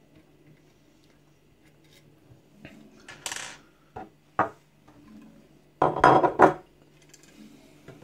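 Metal clicks, clinks and scrapes as a Webley Mk VI service revolver is handled and moved about on a workbench with its grips removed, the loudest scraping clatter about six seconds in.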